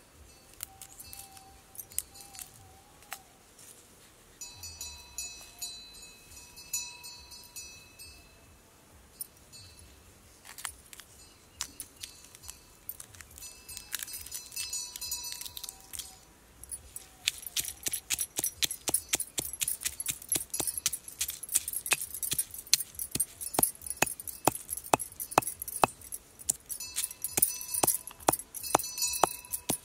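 A metal pestle pounding dried red chillies in a stone mortar, sharp strikes about two a second starting a little past halfway, with bangles clinking along. Before that, light scattered clicks as the dry chillies are broken up by hand.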